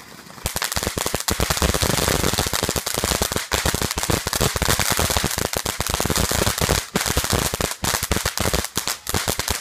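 Ground fountain firework going off with a dense, rapid crackling of popping stars, starting about half a second in.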